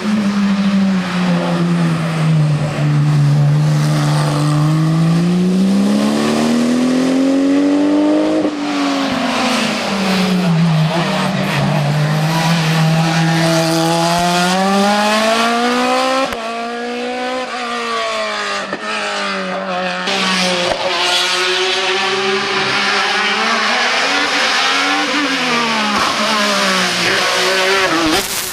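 Racing car engine on a hillclimb, revving hard and repeatedly rising and falling in pitch as it accelerates, shifts gear and slows for corners. The level drops about sixteen seconds in.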